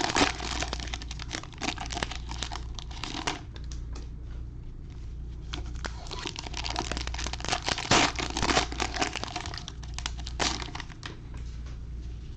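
Foil wrappers of 2020 Donruss Optic Football fat packs being torn open and crinkled by hand, in spells of a few seconds with short pauses between.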